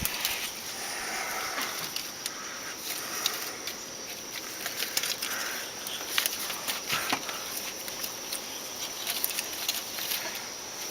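Hands working a self-adhesive wool gasket onto the ceramic rim of a Big Green Egg, pressing and bunching it into small gathers. It makes soft rustling with scattered small, irregular clicks and ticks.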